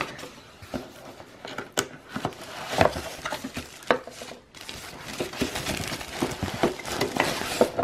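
Cardboard packaging being opened, with a few light knocks and scrapes as the lid comes off. About halfway through, a thin plastic bag around the device starts crinkling continuously as it is handled.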